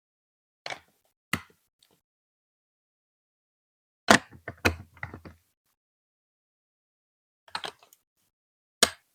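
Hard plastic clacks and knocks from Lego Duplo marble-run pieces, in separate short groups: two single knocks, then a rattling cluster of several, then a few more.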